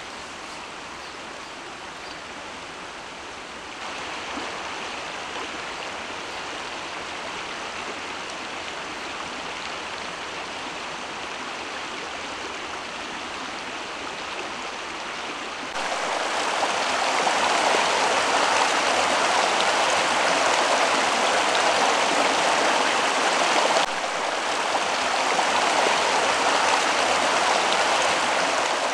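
Rocky stream running over stones: a steady rush of water. It steps up in loudness a few seconds in and much more about halfway through, dips briefly about three quarters of the way in, then comes back.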